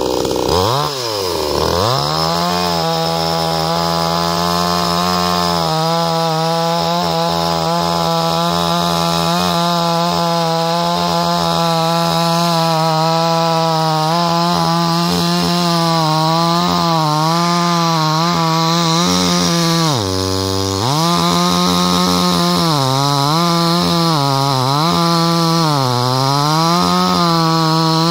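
Gasoline two-stroke chainsaw running at full throttle while cutting through a thick log, sawdust flying. The engine note dips deeply about a second in and again about twenty seconds in, then picks back up. Near the end it sags and recovers several times as the chain bites under load.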